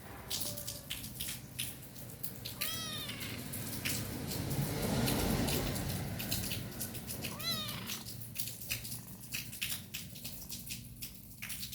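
Snoring: one slow swell of breathing noise in the middle, with two short, squeaky, high-pitched calls that rise and fall, about 3 seconds and 7.5 seconds in.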